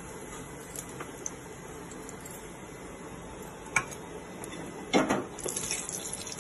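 Cumin seeds sizzling quietly in hot ghee in a pressure cooker, with a few light clicks, a sharp knock about four seconds in and a clunk of the metal pan around five seconds. Near the end the sizzle flares up into a louder hissing fry.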